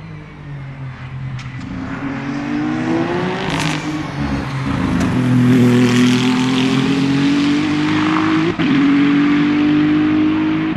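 Race car engine accelerating hard, its note rising in pitch and getting louder, with a brief break in the note about four seconds in and again near the end, as at gear changes.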